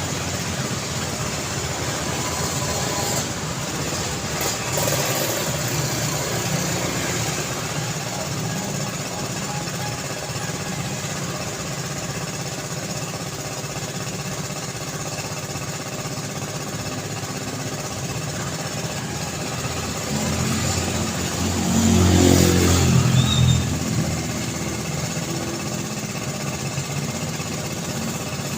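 City road traffic: a steady wash of engine and tyre noise from passing vehicles, with one vehicle passing close and louder about three-quarters of the way through.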